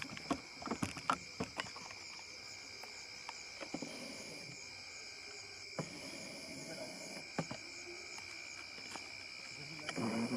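A steady chorus of night insects, two continuous high shrilling tones, with scattered soft clicks and knocks over it.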